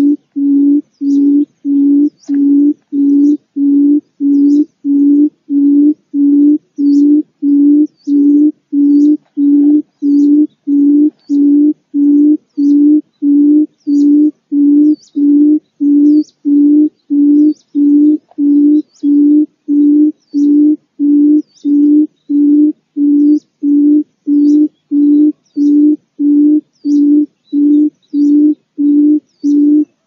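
Barred buttonquail calling: an unbroken run of short, low hoots, all at one pitch, about one and a half a second. Faint high chirps sound above it.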